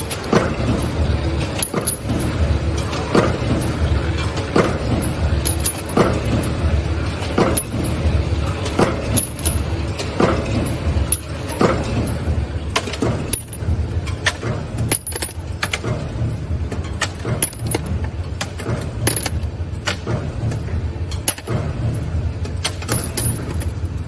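Nut former cold forging machine running: a heavy forming stroke about every one and a half seconds over a steady low motor hum, with many lighter clicks and clinks between the strokes.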